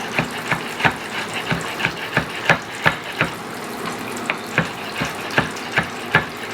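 Knife chopping chipotle peppers on a cutting board: quick, uneven knocks about two to three a second over a steady hiss.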